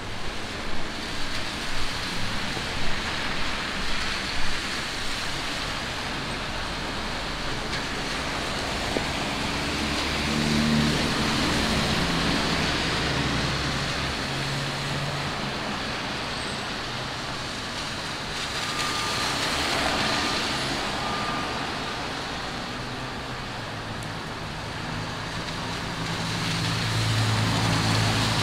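City street traffic in the rain: engines running and tyres hissing on wet asphalt over a steady wash of rain noise, with a heavier vehicle's low engine hum building near the end. A run of sharp taps comes in the first few seconds.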